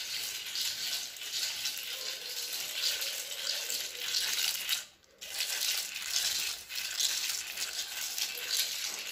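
Dry, scratchy grinding as the top disc of a toy millstone made of crisp fried sakinalu (rice-flour snack) is turned by hand on the bottom one. The sound stops briefly about five seconds in.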